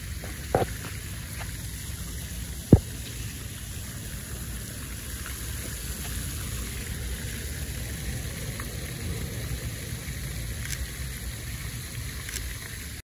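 Fountain water splashing steadily into its basin, with wind rumbling on the microphone. Two sharp knocks cut through, about half a second in and just under three seconds in, the second the loudest.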